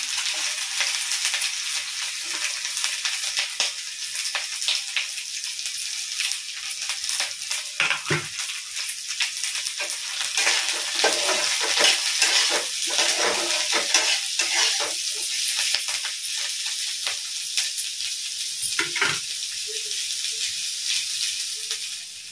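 Sliced onions sizzling in hot oil in a black iron wok, with a spatula scraping and knocking against the pan as they are stirred. The stirring strokes come thickest around the middle.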